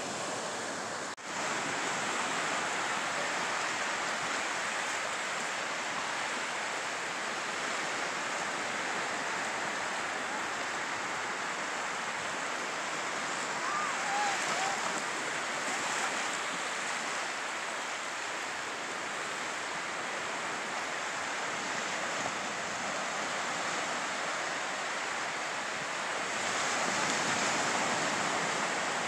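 Small surf waves breaking and washing steadily onto a sandy beach, a continuous rushing wash. The sound drops out briefly about a second in.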